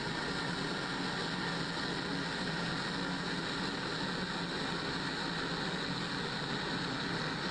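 Propane gas burner of a Volcano glass bead-making oven, its flame burning with a steady, even rush that doesn't change.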